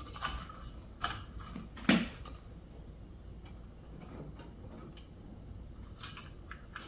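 Scattered clicks and knocks of electrical cables being handled and fed into a switch box. The loudest knock comes about two seconds in, then a quiet stretch, then a few more clicks near the end.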